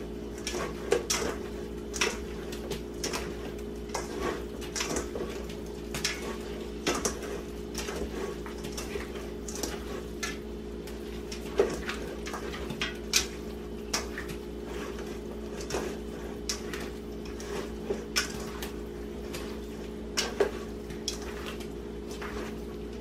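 Hands tossing diced raw beef with dry seasonings in a bowl to coat it, making irregular soft squishes and light clicks and knocks against the bowl.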